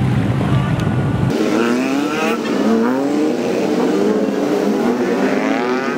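Tuk-tuk (auto-rickshaw) engines revving as a line of them drives past, several engine notes overlapping and rising and falling in pitch. About a second in, the deep low rumble drops away suddenly.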